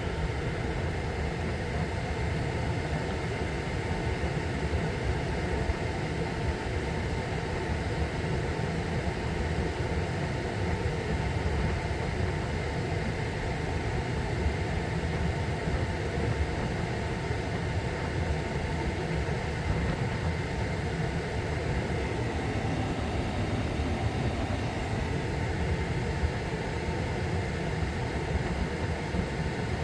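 Steady whirring hum from a switched-off 2021 Ford F-150 PowerBoost hybrid that is stuck in a no-start fault, running on without change.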